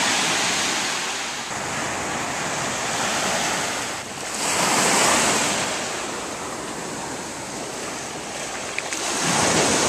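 Sea waves washing onto a beach, the surf swelling and fading three times: at the start, about five seconds in, and near the end.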